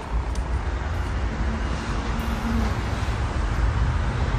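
Steady outdoor traffic noise with a low rumble, with a faint brief hum about a second and a half in.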